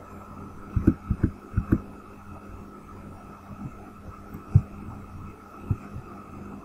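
Computer keyboard keystrokes and mouse clicks picked up as low thumps: a quick run of about six about a second in, then single ones near the middle and near the end, over a steady electrical hum.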